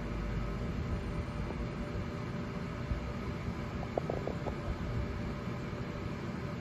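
HIWIN robot arm's servo motors and drives humming steadily as the arm moves its stylus tip along a curved path. A quick run of faint ticks comes about four seconds in.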